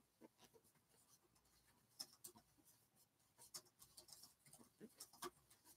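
Near silence broken by faint scattered rustles and light ticks: an 8 mm crochet hook working through bulky yarn in single crochet.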